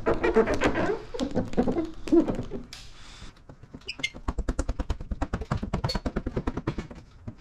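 Indistinct vocal sounds for the first couple of seconds. After that comes a rapid run of squeaky ticks, about ten a second, as wet paint protection film is wiggled by hand and pressed down with a squeegee on the hood.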